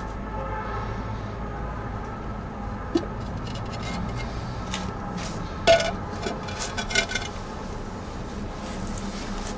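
A few sharp clicks and clinks, the loudest a little before six seconds in and a short cluster about a second later, over a steady low background hum.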